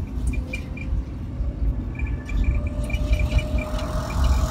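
Electric three-wheeler riding along the road: low rumble of road and wind noise, with the motor's faint whine slowly rising in pitch. A light, rapid ticking joins in about halfway through.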